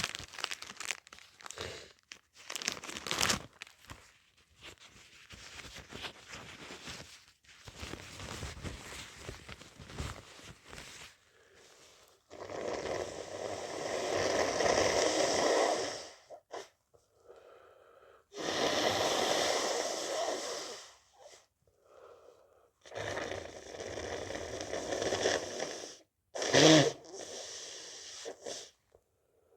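A person with a stuffy head cold, with no talking: crinkling and rustling at first, then several long, noisy stretches of congested nasal sound, and one sharp sneeze, the loudest moment, about three quarters of the way through.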